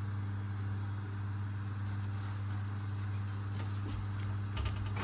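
Electric oven running with a steady low hum and hiss, its fan and heating in operation; a few faint clicks near the end.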